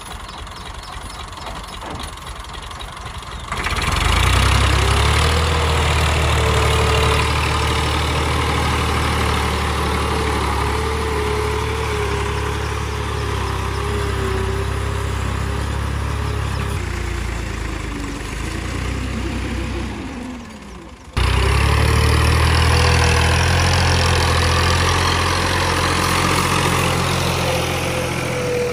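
Tractor engine running, with a wavering whine above its steady hum. It gets suddenly louder about four seconds in, slows with its pitch falling near the twenty-second mark, then comes back up abruptly a second later.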